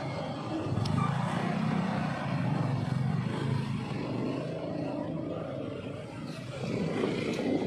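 Motorcycle running while being ridden along a street, its engine and road noise steady, dipping about six seconds in and rising again near the end.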